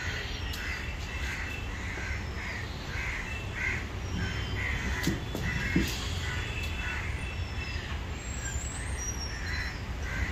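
Birds calling: a long, even run of short harsh calls, about two a second, with a few thin, high, falling chirps over them and a steady low rumble underneath.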